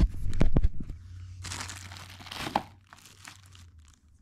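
Clear plastic packaging bag crinkling and rustling as it is handled and pulled open, in two main bursts that die away to faint rustles near the end.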